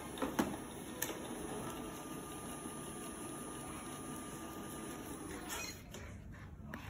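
iLife V55 Pro robot vacuum running at its charging base, a steady motor hum with a faint high whine. There are a few sharp knocks in the first second, and the motor noise cuts out about six seconds in.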